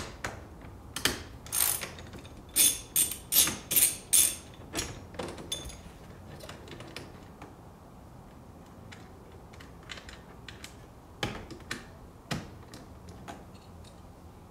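Sharp plastic clicks and clacks of a small hand tool prying at the rubber plugs on the side of a Mazda MX-5 (NC) steering wheel: a quick run of about ten over the first five seconds or so, then a few more eleven to twelve seconds in.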